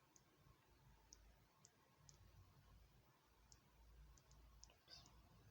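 Near silence: faint low room hum with a dozen or so soft, high, irregular ticks.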